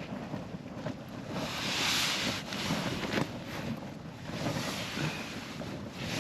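Wind gusting over the tent and the microphone, a steady rush that swells to a strong gust about two seconds in and eases off again.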